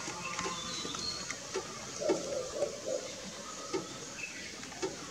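Common green magpie pecking and tugging at a plastic food packet: irregular crinkling of the plastic and sharp taps of the bill, a few to a second.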